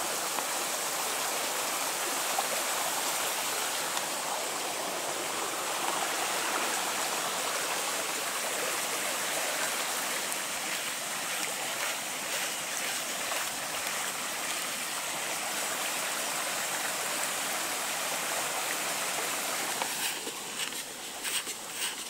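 Small woodland brook running over rocks and little cascades, a steady rushing of water. Near the end the water sound drops away and footsteps crunch on a leaf-covered path.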